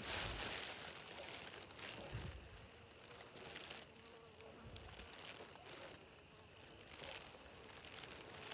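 Field insects chirping steadily in a high, continuous trill, with a few soft low thumps.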